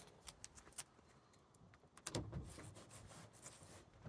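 Near silence with a few faint clicks and a soft handling rustle about two seconds in.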